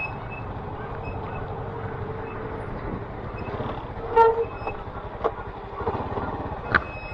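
Small motorcycle engine running steadily at low revs, with one short horn-like toot about four seconds in and a couple of sharp clicks near the end.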